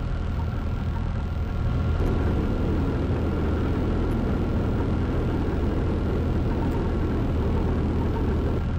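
Zenith CH 750 Cruzer light aircraft's engine and propeller running steadily at low power while the plane taxis. About two seconds in, the sound gets slightly louder, with more rushing noise over the drone.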